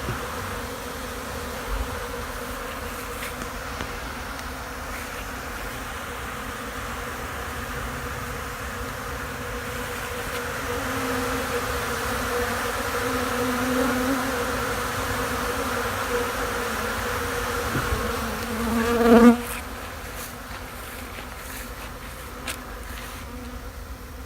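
Many honeybees buzzing steadily as they rob out the honey left on extraction equipment. About three-quarters of the way through, one bee's buzz swells loud and close, then the buzzing settles a little quieter.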